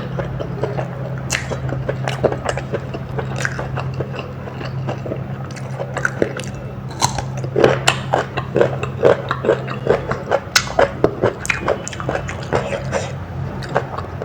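Close-miked mukbang eating: chewing with crisp, crunchy bites that come faster and louder in the second half, over a steady low hum.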